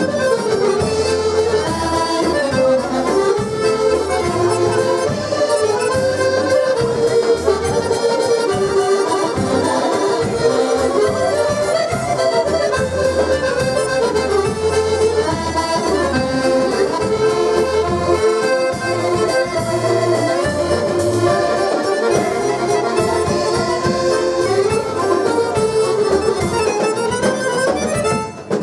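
Two button accordions playing a tune together as a duet, the melody over a steady pulsing bass. The music dips briefly near the end.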